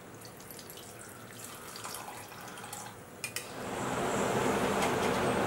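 Water poured from a plastic bottle into a pan of chicken gravy, faint, with light splashing ticks. Two sharp clicks about three seconds in, then the gravy bubbling steadily in the pan, much louder.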